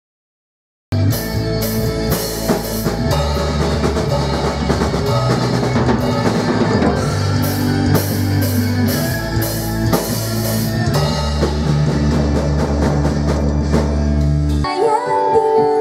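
A rock band playing a song on drum kit, bass and electric guitars. It starts about a second in and stops shortly before the end.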